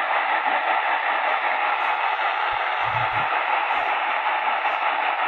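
Steady static hiss from the Sony ICF-SW7600GR portable radio's speaker, tuned between medium-wave stations with no clear signal. It starts suddenly after a moment of silence.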